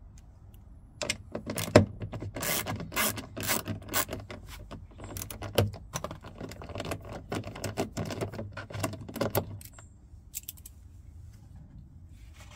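A busy run of small metallic clicks, rattles and scrapes from about a second in until near the end, like keys or small hand tools being handled.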